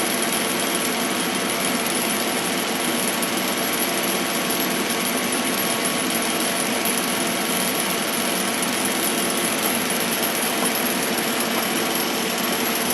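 Goodway GL25 CNC lathe running: a steady, dense mechanical noise with a constant high whine above it.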